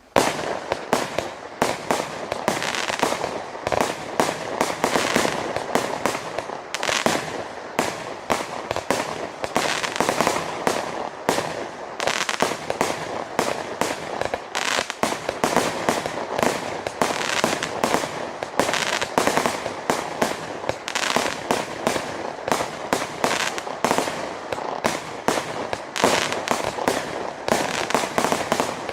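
Multi-shot consumer firework battery (cake) firing shot after shot in rapid succession: a dense, unbroken string of bangs.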